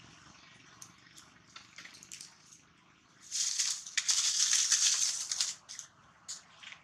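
Dry leaf litter crunching and rustling under monkeys scampering and scuffling: a loud crackling stretch of about two seconds starting about three seconds in, then a few short crunches.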